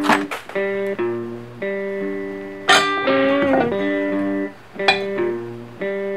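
Background music: guitar playing held, sliding notes with an occasional sharp strike.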